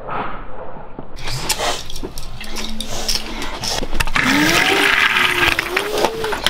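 Die-cast toy car pushed along a cardboard track, with a rushing noise that is loudest from about four to six seconds in, and a child's voice gliding up and down in pitch over it.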